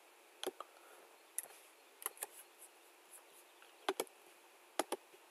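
Faint, scattered clicks of a computer mouse and keyboard, about nine in all, several coming in quick pairs like double-clicks.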